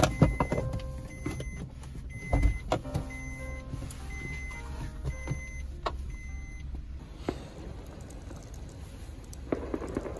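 Car interior sounds: a steady low rumble with scattered clicks and knocks, and a heavy thump about two and a half seconds in.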